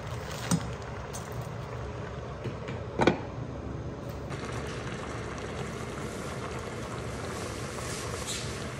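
A glass lid set onto a cooking pot: a light clatter about half a second in, then a louder clink about three seconds in as the lid goes on, over a steady low hum. From about four seconds a steady hiss of the hot pot simmering takes over.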